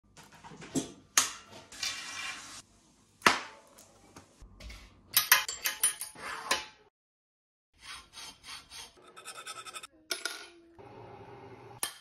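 Bicycle parts and tools being handled during a build: a run of sharp metallic clicks, taps and clinks, in short pieces with a brief gap of silence a little past the middle.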